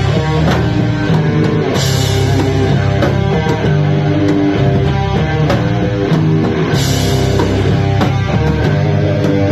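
Loud rock music with guitar and a driving drum kit, with bright crashes about two seconds in and again near seven seconds.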